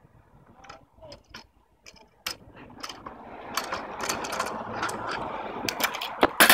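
Kick scooter's wheels rolling over rough pavement, a gritty rattling noise that grows louder from about two seconds in as it comes closer, with scattered clicks. Near the end a burst of loud sharp clatters as the scooter hits the ground during a tail whip attempt.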